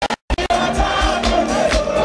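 Live gospel music: a male voice singing into a microphone over a band with electric guitar and keyboard, with a steady beat. The sound drops out in short gaps at the very start.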